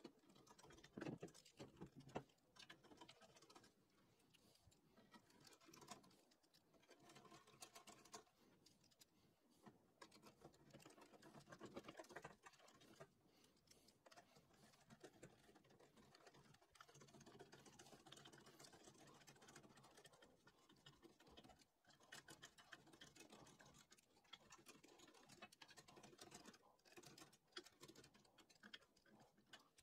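Faint, irregular clicks and scraping of a hand screwdriver driving small bolts through a metal plate into aluminium extrusion.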